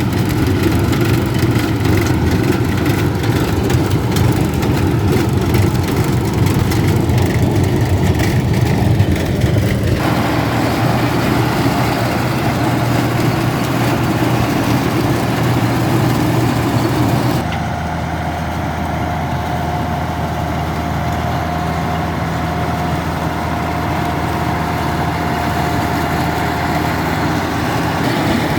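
Tractor engine running steadily while working a two-row corn picker. The sound changes abruptly about ten seconds in and again a little past the middle, and a thin steady whine runs through the later part.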